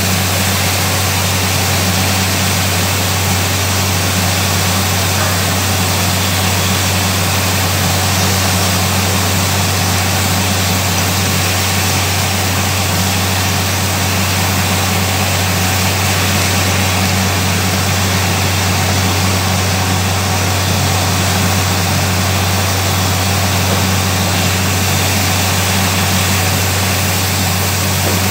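Borewell drilling rig running steadily, its engine and air compressor a constant low drone, while compressed air blows groundwater out of the bore in a continuous rushing spray. The bore has struck a heavy flow of water.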